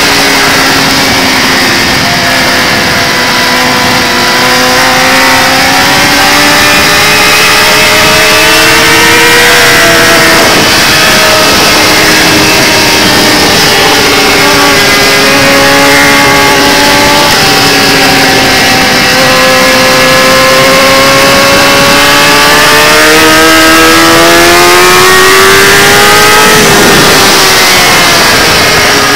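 Kawasaki ZX-10R inline-four engine at racing speed, heard from on board: the engine note climbs hard, then drops sharply at gear changes and under braking, over a constant rush of wind.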